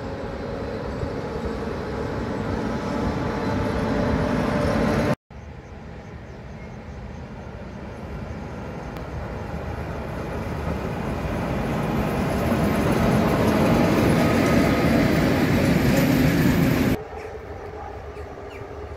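Škoda-built 'Plehács' electric locomotives hauling freight trains, their running noise growing steadily louder as each train approaches. The sound cuts off abruptly about five seconds in and again near the end, where it drops to a quieter level.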